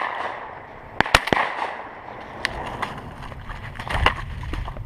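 Several sharp shotgun reports popping across the dove field, the loudest at the start, a quick cluster about a second in and another near the end, some trailing off in an echo. Low rustle and handling noise underneath.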